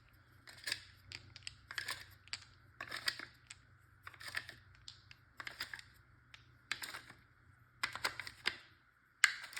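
Less-lethal Jewel V2 rounds being loaded one after another into a 3D-printed round feed head: a series of irregular small hard clicks and clatters.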